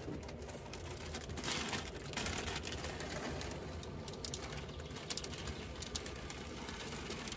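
Pine nuts are shaken out of a plastic bag onto a salad, with the bag crinkling and light ticks as the nuts land, over a low steady hum.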